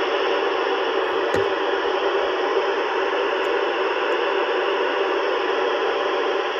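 Steady hiss of FM static from amateur radio transceivers tuned to the ISS repeater downlink near 437.800 MHz: an open channel with no station coming through. One light knock about a second and a half in.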